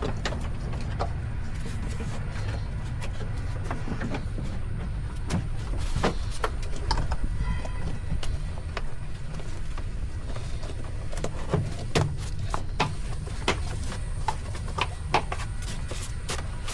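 Scattered sharp clicks and light knocks of hands and tools working on wiring and plastic clips in a truck's engine bay, more frequent in the second half, over a steady low rumble.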